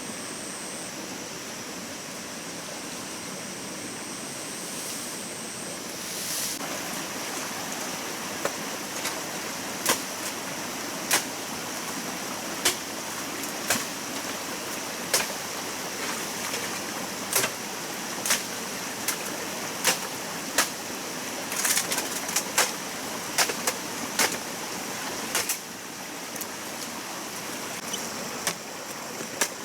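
Stream water flowing steadily. From about six seconds in, sharp ticks come irregularly over it, roughly one a second.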